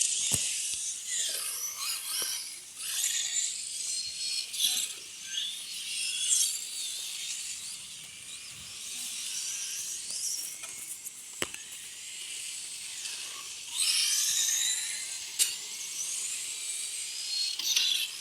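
High-pitched whine of electric remote-control race cars speeding round the track, rising and falling in pitch as they accelerate, brake and pass, with a few sharp clicks.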